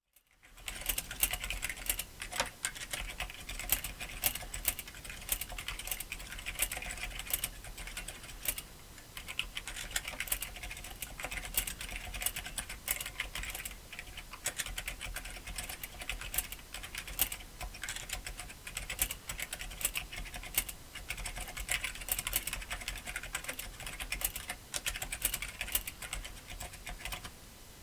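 Fast typing on an iRocks K76M mechanical keyboard with tactile Brown switches in a large plastic case with thin keycaps: a continuous clatter of keystrokes with a couple of brief pauses.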